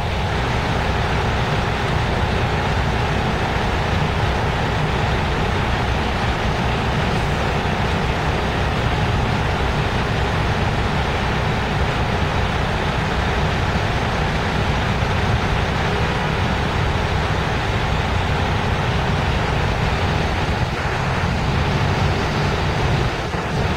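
Freight train of tank cars rolling steadily past at close range, a continuous rumble of steel wheels on the rails.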